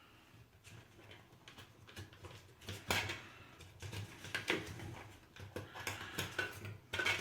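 Small steel blackhead extractor tools clinking as they are handled: a run of irregular light clicks and knocks, sparse at first and busier and louder from about three seconds in.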